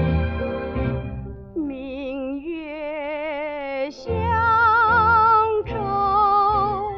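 An old Chinese popular song in a noise-reduced recording. The accompaniment plays alone at first, then about a second and a half in a woman's voice enters, singing long held notes with a wide vibrato and pausing briefly twice.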